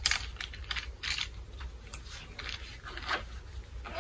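Zipper on a fabric pencil case being pulled shut in several short scratchy strokes, with the coloured pencils inside shifting.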